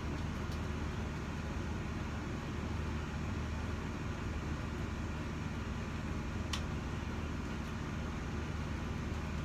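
Steady low mechanical hum with hiss, like a fan or air conditioner running, and a single short click about six and a half seconds in.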